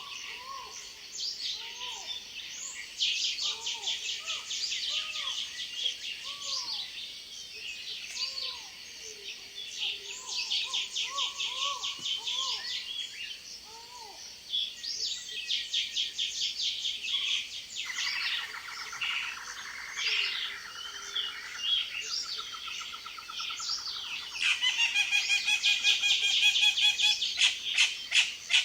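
A chorus of tropical jungle birds calling over one another. Short arched whistled notes repeat low down beneath rapid buzzy trills higher up, and a louder, fast-pulsing trill takes over in the last few seconds.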